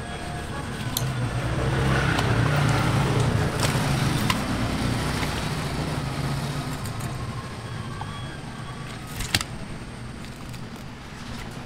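A vehicle passing by: a low rushing noise that swells over the first few seconds and fades away. A few sharp knocks sound over it, the loudest about nine seconds in.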